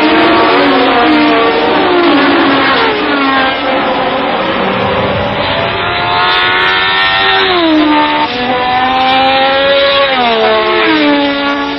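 1970s Formula One racing engines accelerating hard, at first several cars together, then single cars climbing through the gears. The pitch rises and drops sharply at each upshift, several times.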